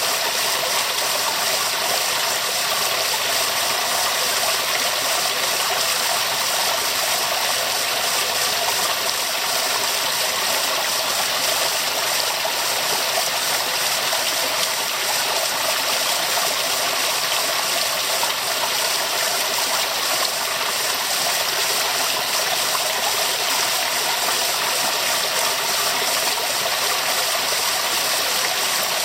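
Waterfall rushing steadily, a constant bright splashing hiss with little low rumble.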